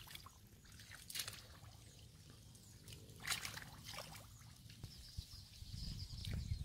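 Faint splashing and sloshing of shallow muddy water as hands and feet move through it, with two small splashes about a second and about three seconds in. A steady high hiss comes in near the end.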